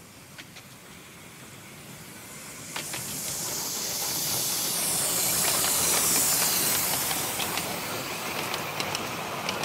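Miniature steam locomotive, a model of an SR 'Merchant Navy' class Pacific, passing close with steam blowing from low at its cylinders: a loud hiss that swells as it approaches, peaks a few seconds in, then eases. Clicks come in as the carriages roll past near the end.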